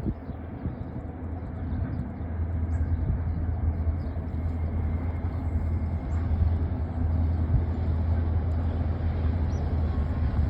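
Diesel locomotives hauling a grain train, a steady low engine drone that grows louder a couple of seconds in.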